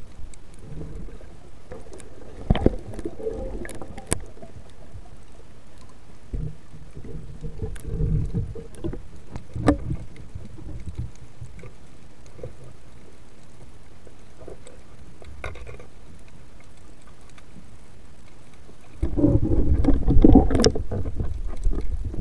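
Underwater sound of a diver moving through the sea: a muffled low rush of water with a few sharp clicks and knocks, growing much louder with churning and bubbling for the last few seconds.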